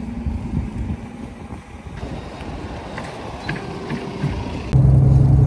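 Low vehicle rumble with wind on the microphone and scattered light clicks. Near the end it switches suddenly to a loud, steady low hum of a running vehicle.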